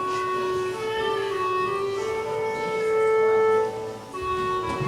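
Instrumental musical accompaniment playing long held melody notes, briefly dropping away about four seconds in before picking up again.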